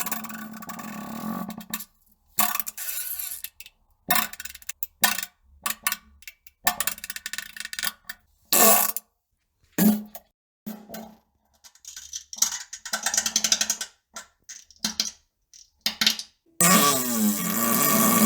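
More than a dozen fart sounds in quick succession, short blasts and longer ones separated by brief silences, with a long one starting near the end.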